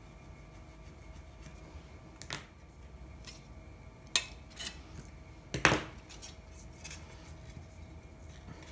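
Thin aluminum flashing strip being handled and bent with needle-nose pliers: a few scattered metallic clicks and crinkles, the loudest about two-thirds of the way in, as sharp angles are bent into the strip.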